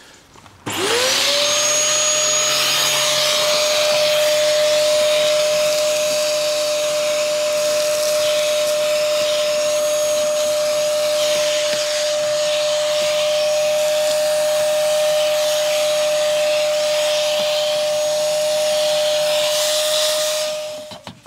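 Dyson vacuum cleaner switched on, its motor spinning up to a steady high whine with rushing air as the crevice tool sucks dirt and leaves out of a car's front radiator opening. It switches off and winds down near the end.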